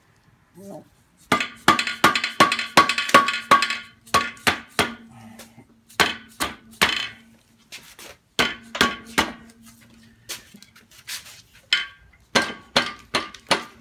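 Tape-wrapped mallet striking the crankcase of a Porsche 356 1600 Super engine to knock the case halves apart, the metal case ringing after each blow. A fast run of about four blows a second for two seconds, then scattered groups of taps.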